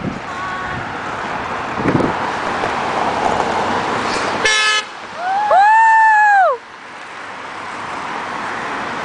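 A passing car's horn gives one short toot, then a loud, high-pitched shout of "woo" that rises and falls for about a second, over steady passing traffic.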